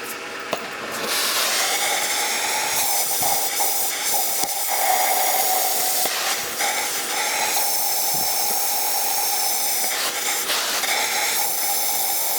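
Oxy-fuel cutting torch hissing steadily as it trims steel, starting about a second in, with a few short dips in the hiss.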